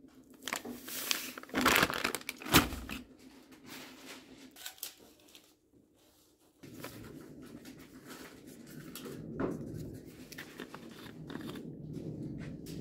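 Plastic bag crinkling and rustling as powder is shaken from it into a plastic cup, with a few sharp knocks and rattles between about one and three seconds in. After a short quiet spell, softer steady handling and scraping noises follow.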